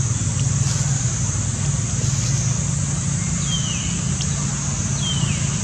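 Steady low rumble with a constant high hiss behind it. Two short, high chirps that fall in pitch come about three and a half and five seconds in.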